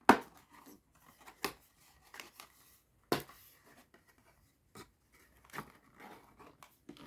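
Trading card display box packaging being handled and opened: a few sharp clicks and taps, the loudest at the very start, with light rustling of cardboard and wrapper in between.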